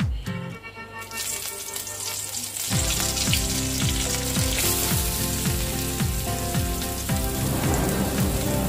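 Hot oil sizzling in an aluminium kadai during tempering with mustard seeds and curry leaves; the sizzle starts about a second in and carries on as chopped onions go into the pan. Background music with a steady beat comes in under it a few seconds in.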